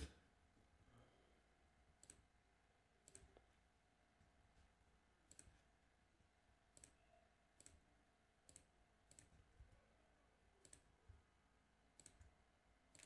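Computer mouse button clicking, faint and at uneven gaps, about ten clicks, one every second or so.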